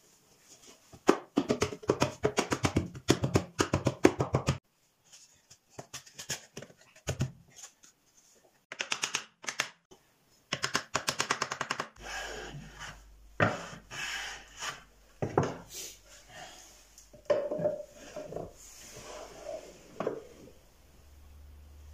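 Small hammer and hands tapping and knocking wooden cabinet parts together, in quick runs of light taps, then scattered single wooden knocks over a low hum.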